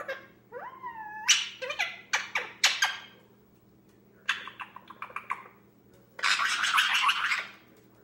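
Young male Indian ringneck parrot making play noises: a wavering whistle that glides up and down, then strings of sharp clicks and chatter, and a harsh raspy burst of just over a second near the end.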